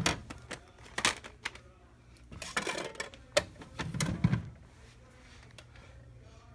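A hand handling a plastic portable CD boombox: a run of sharp plastic clicks and knocks with some rubbing, and a dull thump about four seconds in. The rest is quiet apart from a faint low hum.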